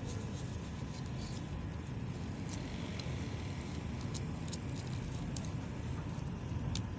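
Toothbrush bristles scrubbing a rusty metal spoon handle: short, irregular scratchy clicks over a steady low background rumble.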